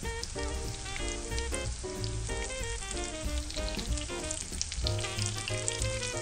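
Syrniki (cottage-cheese fritters) frying in hot sunflower oil in a pan: a steady sizzle full of small crackles, heard over background music with a steady melody.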